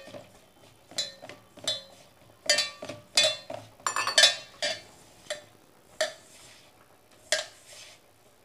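Flour and water being mixed by hand into a stiff dough in a stainless steel pot: about a dozen irregular metallic clinks and knocks against the pot, each ringing briefly.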